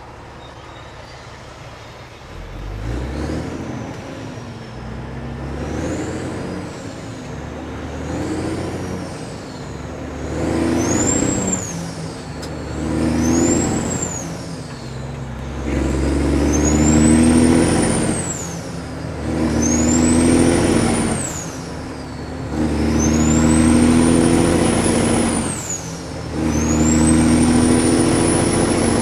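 Kenworth W900 diesel semi with loud pipes pulling away after a couple of seconds at idle, winding up through about nine gears: the engine note swells and drops at each shift, and later gears are held longer. A high turbo whistle rises and falls with the revs in each gear.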